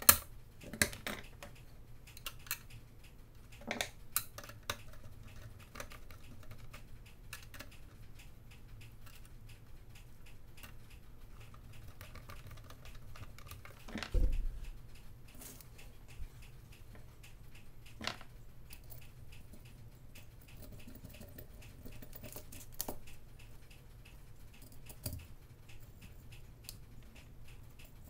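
Scattered small clicks, taps and handling noises of hands working wires into the screw terminals of a switching power supply and a motor speed controller board, with one louder knock about halfway through.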